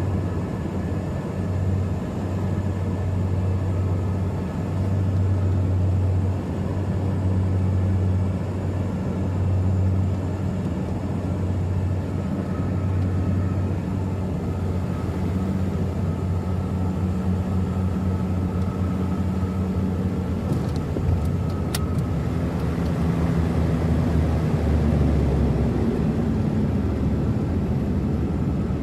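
Cabin drone of a Beechcraft King Air twin turboprop: a steady, beating propeller hum with engine noise. A few sharp clicks come about two-thirds of the way in, and after them the hum drops slightly in pitch.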